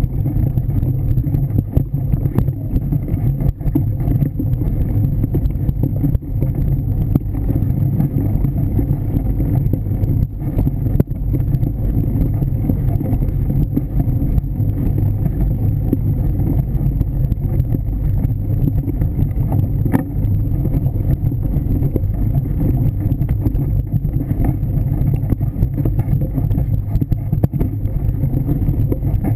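Steady low rumble from a bike-mounted camera riding a dirt trail: wind buffeting the microphone and the bicycle shaking over the rough ground.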